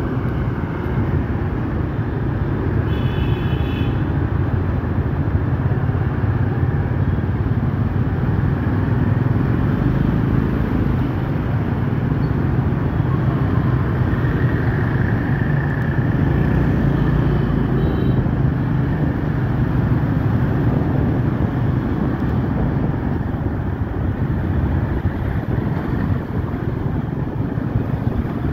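Steady engine and road noise from riding in city traffic, with motorbike scooters and cars alongside. A short high-pitched beep sounds about three seconds in.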